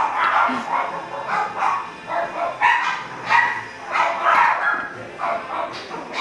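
Three-week-old Coton de Tulear puppies making little sounds: a run of short, high calls, about two a second.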